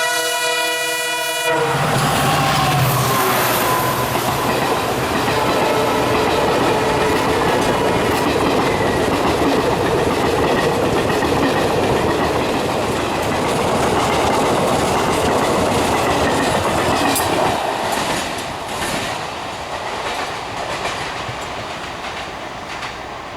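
Horn of an EMD diesel locomotive of the Indian Railways WDP-4 family, cutting off about a second and a half in. A train then passes close by with loud, steady wheel and engine noise and clickety-clack over the rail joints, fading away over the last few seconds.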